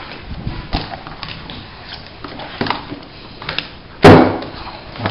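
Light rustles and small knocks as a silicone baking mat is laid on a worktop, then a single solid thud about four seconds in as a heavy stone mortar is set down on it.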